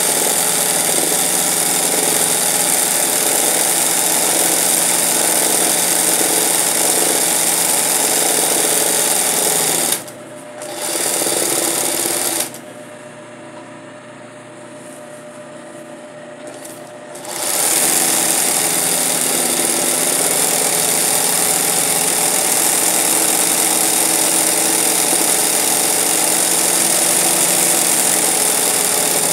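Industrial zig-zag sewing machine (a 20U) running fast, stitching free-motion embroidery on fabric stretched in a hoop. It stops about ten seconds in, runs again briefly, then pauses for about five seconds before running steadily again.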